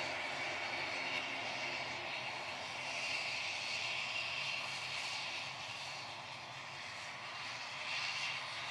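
Twin-turboprop ATR airliner's engines and propellers running steadily as it rolls along the runway: a continuous drone with a high whine over it.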